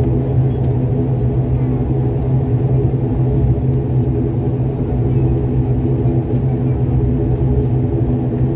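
Airliner cabin noise during the landing roll: a steady, loud engine hum over a low rumble as the plane rolls along the runway.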